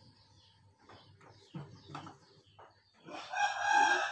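A rooster crows once, a single call of just over a second near the end. Faint taps and rustling come before it.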